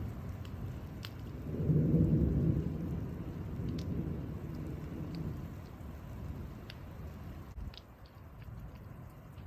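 Thunder rumbling, swelling about a second and a half in and then slowly dying away, with scattered drops ticking.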